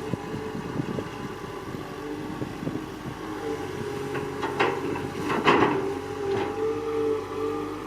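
Excavator engine running steadily, with a cluster of knocks and clanks past the middle, the loudest just after halfway.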